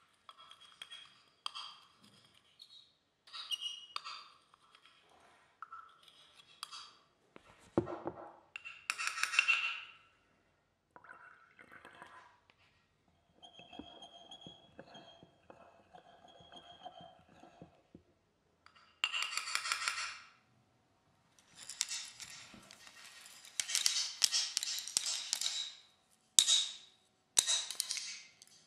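Processed sound-design collage made from the sounds of painting: scattered short clinks and ringing tones, a steady pair of tones over a low pulse midway, and hissing swishes that grow louder and denser in the second half, with silent gaps between.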